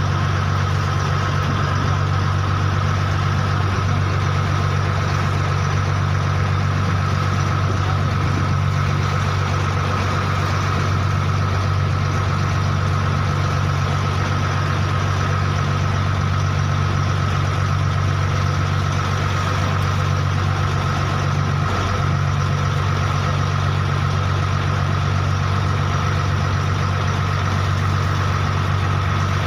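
An engine running steadily at idle, an unchanging low hum with a faint steady whine above it.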